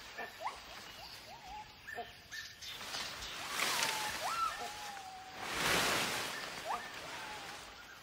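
Gibbons calling in the forest canopy: repeated whooping notes that slide upward, some held or falling back. Two louder rushes of rustling leaves and branches come a little before the middle and just after it, as animals move through the tree.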